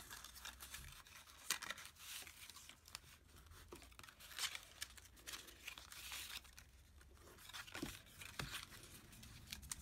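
Cardstock being folded and creased along its score lines: faint, irregular paper crackles and rustles.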